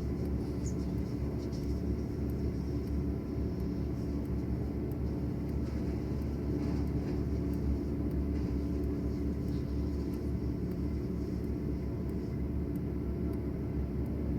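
A machine engine running steadily at a constant speed, with a low, even hum.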